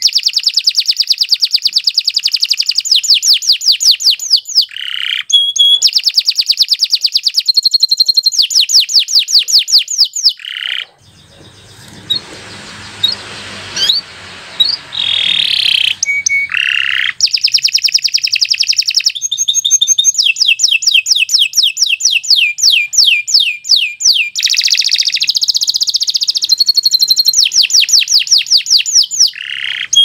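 Domestic canary singing a long song of rapid trills and fast repeated high whistled notes. The song breaks off for a few seconds near the middle, then carries on.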